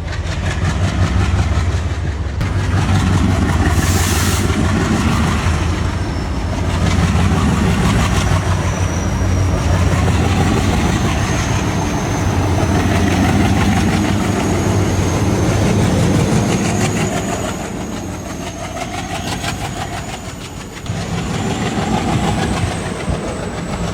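Train running on the rails: a steady low rumble with rapid wheel clatter. From about a third of the way in, a thin high whine rises slowly in pitch.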